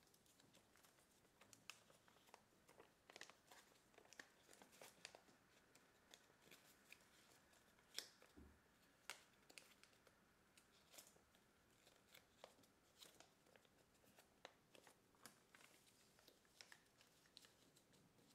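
Kraft paper being folded and creased by hand, giving faint, irregular crinkles and crackles, with one sharper crackle about eight seconds in.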